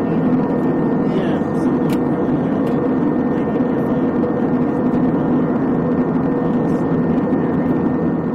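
Jet engine and airflow noise inside the cabin of an Airbus A321 airliner: an even rushing noise with a steady low hum under it.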